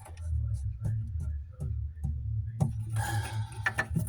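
Scattered small clicks and rubbing of plastic sink-drain fittings being handled and hand-tightened, busier in the last second and a half, over a steady low hum.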